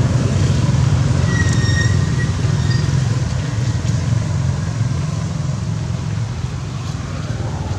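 Steady low rumble of a motor vehicle's engine running, with a brief high-pitched call about one and a half seconds in.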